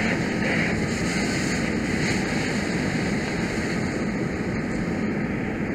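Steady rushing noise of a fire hose stream spraying water onto a burning vehicle, with the fire engine's pump running underneath.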